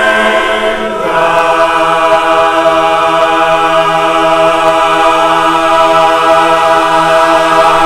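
Men's barbershop chorus singing a cappella in four-part harmony, moving to a new chord about a second in and holding it steadily: the sustained closing chord of a song.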